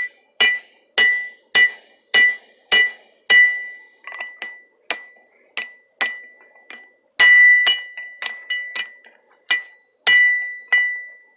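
Hand hammer driving a square drift through a hot iron bar on the anvil: a steady run of blows about two a second, each with a bright metallic ring. The blows go lighter through the middle, then heavier again from about seven seconds in.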